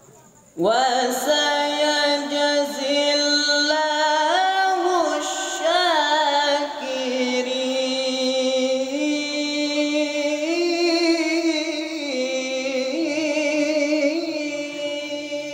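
A teenage male qari reciting the Quran in the melodic tilawah style. His voice comes in about half a second in and carries one long phrase, held notes bent with ornamented turns around the middle, then settling onto lower sustained notes.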